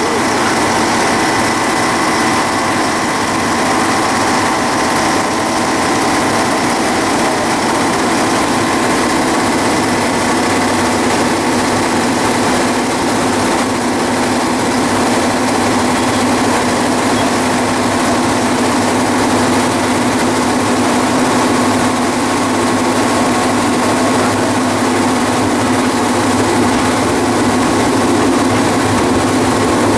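Diesel locomotive engine running steadily under way, heard from inside the driver's cab, a constant drone with a few steady humming tones.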